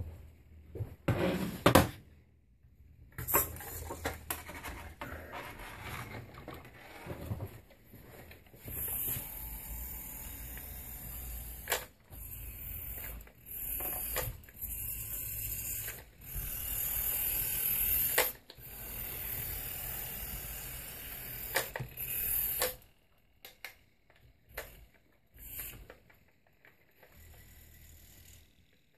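Small electric drive of a Siku radio-controlled crawler tractor whirring in start-and-stop stretches of a few seconds, with scattered sharp clicks, and mostly quiet gaps in the last few seconds.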